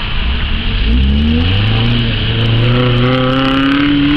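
Land Rover Defender engine revving hard while the 4x4 pushes through deep mud. The engine note rises about a second in and is then held high, creeping slowly higher.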